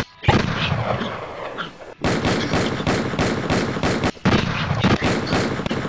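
Rapid gunfire, several sharp shots a second. It breaks off abruptly about two seconds in and again about four seconds in, then starts again each time.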